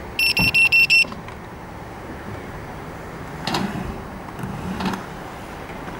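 A rapid series of about five short electronic beeps at one high pitch, all within the first second. After the beeps there is only a low steady rumble with faint rubbing against fabric.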